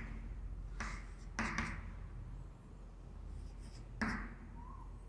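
Quiet writing: a few short scratchy strokes, about a second in, again around a second and a half, and once more near four seconds.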